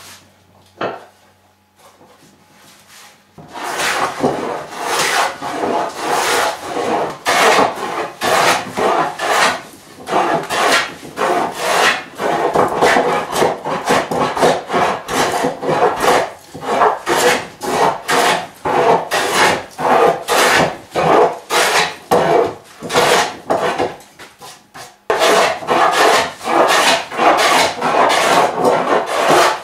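Hand plane taking rapid, repeated strokes across a rough-sawn wooden slab, each pass a loud rasping shave of the blade through the wood, with a short break near the end. A single knock comes about a second in, before the planing starts.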